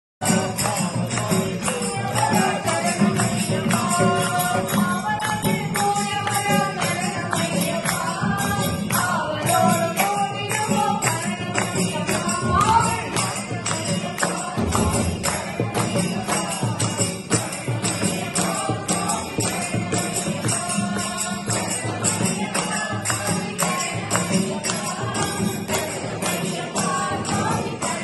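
Ayyappan devotional bhajan: a group of voices singing into microphones over a loudspeaker, with a tambourine jingling a steady beat.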